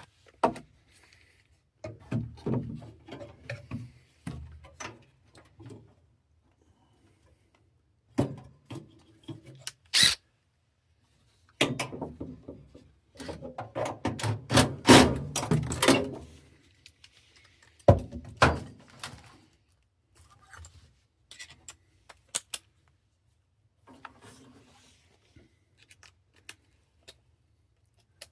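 Hands working on a furnace: irregular thunks, knocks and rubbing as metal parts and tools are handled. There is a sharp knock about ten seconds in, a busy stretch of clattering between about twelve and sixteen seconds, and another sharp knock soon after.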